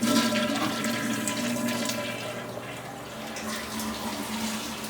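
A toilet flushing: water rushing in loudly all at once, then slowly easing off.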